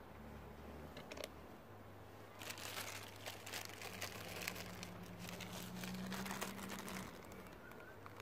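A clear plastic bag crinkling as it is handled, a dense run of crackles starting about two seconds in and lasting several seconds.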